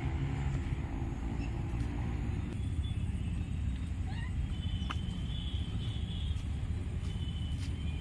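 A steady low rumble of outdoor ambience, with a few short bird chirps and whistles in the middle and a couple of faint clicks.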